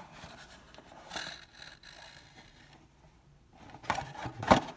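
Cardboard trading-card box being opened and handled by hand: soft scraping and rubbing, then a few louder knocks and rustles near the end as the plastic graded-card slab comes out.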